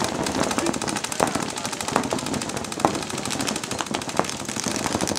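Paintball markers firing fast strings of shots, a rapid steady popping, with a few louder single cracks standing out now and then.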